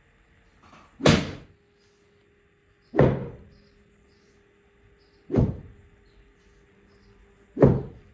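A long thin wooden stick beating a heap of raw sheep's wool, the traditional way of loosening and fluffing fleece by hand. Four sharp whacks come about two seconds apart.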